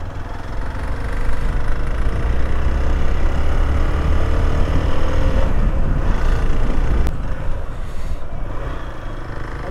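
Motorcycle engine running under way, its note climbing slowly over a few seconds, with heavy wind rumble on the microphone. The rumble swells about a second in and eases off toward the end.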